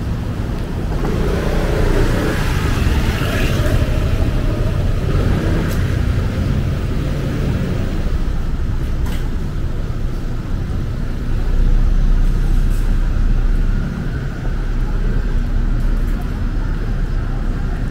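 City street ambience: a steady low rumble, swelling for a couple of seconds past the middle.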